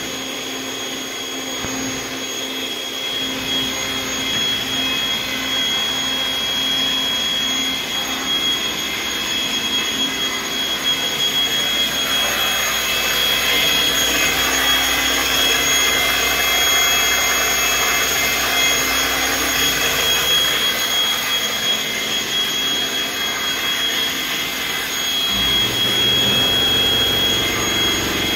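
Haas CNC mill's spindle running under a 40 hp spindle drive being tested: a steady mechanical whir with a high whine, growing louder over the first dozen seconds. A lower hum joins a few seconds before the end.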